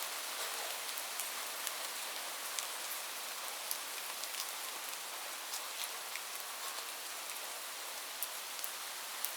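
Steady rain falling, a constant hiss with many individual drops ticking sharply on a hard surface such as a roof.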